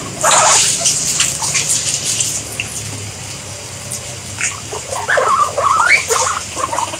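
A crowd of guinea pigs squeaking in short calls, a few of them rising in pitch, with a cluster of calls about five seconds in. Underneath is the rustling and crunching of the animals feeding on greens and feed, loudest in the first second.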